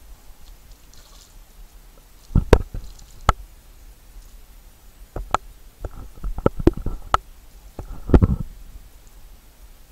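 A hooked carp thrashing and splashing at the surface as it is played close to the bank: irregular splashes and knocks, the heaviest about eight seconds in.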